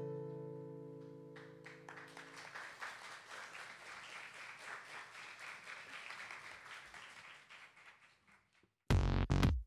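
The last strummed chord of an acoustic guitar rings out and fades while audience applause rises about a second in and slowly dies away. Near the end, a loud electronic dance track with a drum machine cuts in suddenly.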